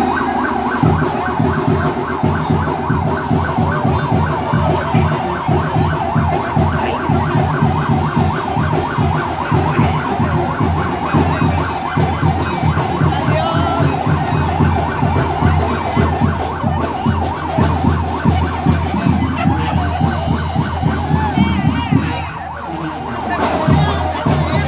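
Siren wailing up and down in quick repeated cycles, steady and loud, with a brief dip near the end.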